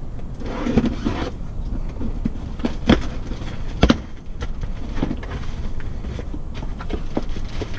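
Scissors slicing through the packing tape on a cardboard box, then the cardboard flaps being pulled open and the contents handled, with two sharp knocks about a second apart near the middle. A low steady rumble runs underneath.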